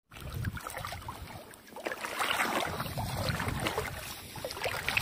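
Shallow seawater sloshing and splashing around the legs and feet of someone wading across a seaweed-covered reef flat, in uneven irregular splashes.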